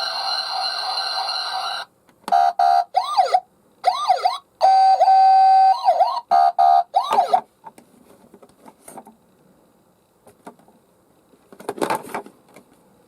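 Toy ambulance's electronic siren sounding: a steady pitched tone, then after a brief break choppy, stop-start stretches of steady tones and rising-and-falling wails, which stop about seven and a half seconds in. A short noise near the end.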